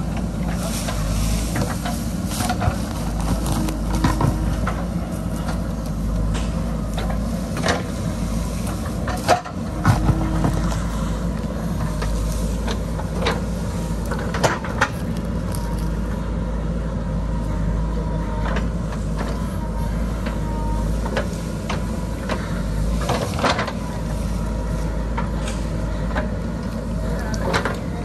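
JCB backhoe loader's diesel engine running steadily under load while the backhoe bucket digs into earth and roots. Irregular sharp knocks and scrapes from the bucket break in now and then.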